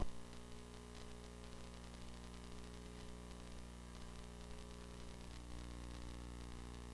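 Faint, steady electrical mains hum with a light hiss, with no other sound above it.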